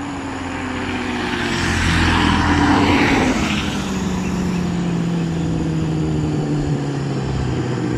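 Honda CBR250 motorcycle passing by at speed: its engine note grows louder to a peak about three seconds in, then drops in pitch and fades a little as it moves away.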